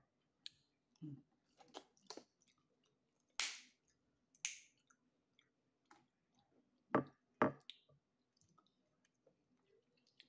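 Close-up eating sounds of snow crab legs: scattered sharp snaps and clicks from the shells and mouth, the two loudest about seven seconds in, with two short hissing slurps around three and a half and four and a half seconds.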